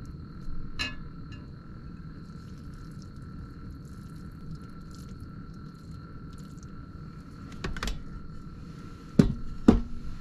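Tongs and a white enamel pot clinking lightly as spaghetti is lifted out and plated. Near the end, two sharper clanks come half a second apart as the pot's lid is picked up with the tongs. A steady faint hum runs underneath.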